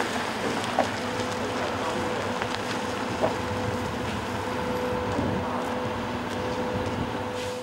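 Heavy-haul truck and its multi-axle Faymonville low-loader trailer rolling slowly over concrete, a steady vehicle noise with a steady whine that sets in about a second in. Two short clicks stand out, one near the start and one about three seconds in.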